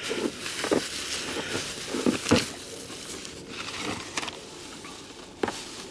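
Bubble wrap and cardboard rustling and crinkling as a radio set is lifted out of a packed box, with a few sharp crackles.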